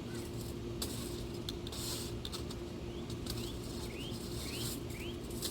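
Hot charcoal briquettes being handled and placed for a cast iron Dutch oven: a run of light clicks and short scraping clatters. A few short rising chirps come in the second half.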